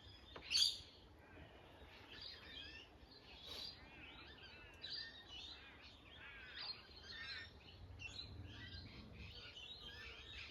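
Several wild birds chirping and singing, with many short overlapping calls throughout and one loud sharp call about half a second in.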